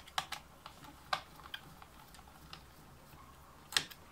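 Irregular sharp clicks and taps as hands work on the opened plastic body of a keyboard, removing small screws: a quick cluster at the start, a few scattered ones, and a loud click near the end.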